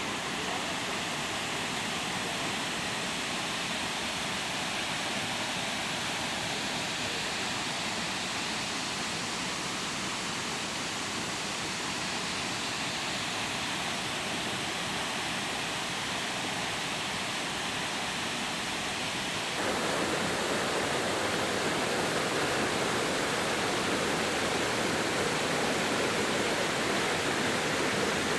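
Heavy storm rain pouring down, a steady rushing hiss that abruptly gets louder about two-thirds of the way through.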